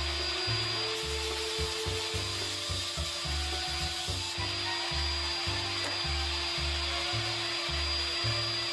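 Overhead router running steadily with a constant whine, its cutter machining a rebate in wood.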